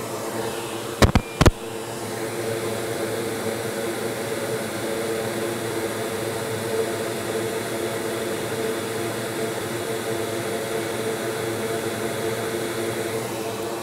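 Steady whir of a fan with a low hum running through the workshop, with two sharp clicks about a second in.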